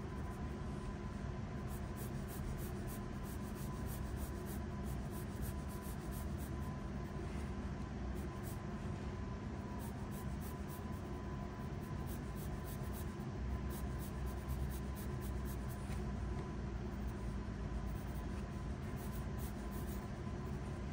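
Graphite pencil scratching across paper in quick repeated sketching and shading strokes, over a steady low background hum with a faint high tone.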